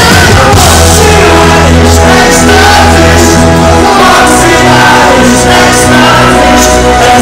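Live pop-rock band playing loud through a stage sound system: a male lead singer over drums, bass and guitar, with long held notes.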